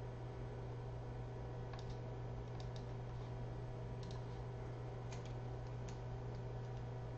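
A few light, irregular clicks and taps from a stylus writing on a pen tablet, over a steady low electrical hum.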